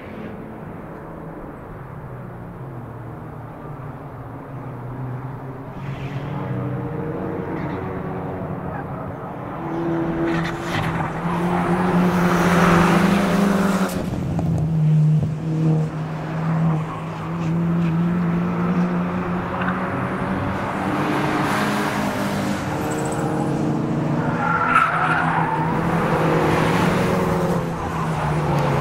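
Track-day cars running hard on a circuit, approaching from out of sight. Their engine and exhaust note rises and falls through gear changes and lifts, growing louder about ten seconds in, with a short tyre squeal near the end.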